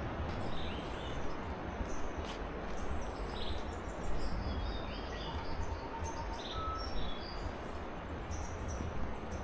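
Steady rush of a river in a humid forest, with birds giving scattered short chirps and a few brief whistles over it.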